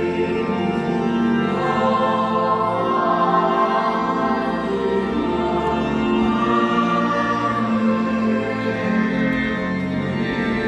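Church organ and choir music: singing over held organ chords that change every second or two.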